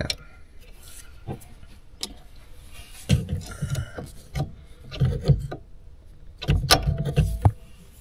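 Hand-work on a tractor's throttle linkage: a few light metallic clicks and several dull bumps as a small spring key clip is worked onto the throttle cable end with needle-nose pliers.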